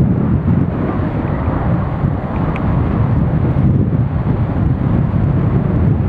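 Strong gusty wind rumbling on the microphone and its windjammer, with the low rumble of a taxiing Boeing 767 airliner's jet engines beneath it.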